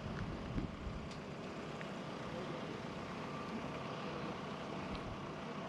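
Steady hum of a motor vehicle engine running, with a few faint ticks.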